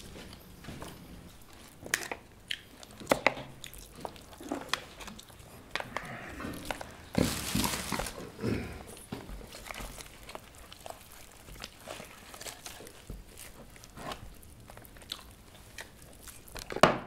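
Eating sounds: chewing and biting, with hands pulling meat and bone off boiled sheep heads, heard as scattered small clicks and ticks. A longer, louder burst of noise comes about seven seconds in, and a sharp click just before the end.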